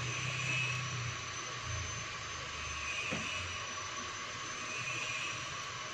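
Steady background noise: an even hiss with a low hum that swells and fades a few times.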